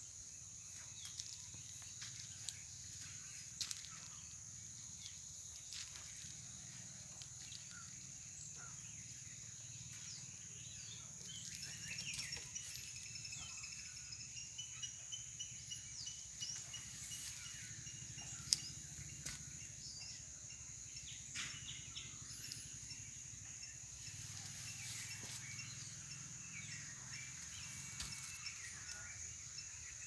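Outdoor ambience of a steady, high-pitched insect drone, with birds chirping from about a third of the way in and scattered faint clicks.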